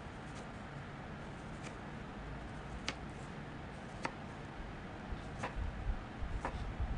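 Chef's knife slicing a peeled pear half and striking a plastic cutting board, a sharp click with each cut, about one a second. Soft low bumps come in near the end.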